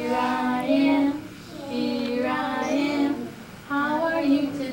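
A woman and young children singing a children's song together, in phrases of held notes with short breaks between them.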